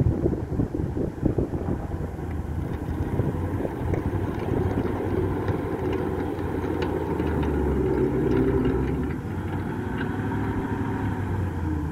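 1942 Universal Carrier Mk I*'s Ford flathead V8 running at low speed as the tracked carrier moves, with sharp ticks of track links throughout. The engine note swells a little about eight seconds in.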